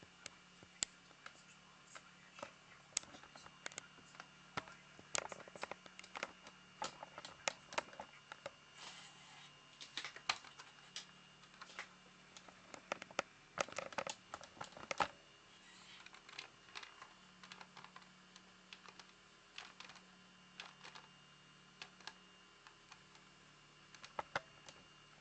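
Irregular light clicks and taps of small hard objects, coming thickest in the middle and sparser toward the end, over a faint steady hum and a thin high whine.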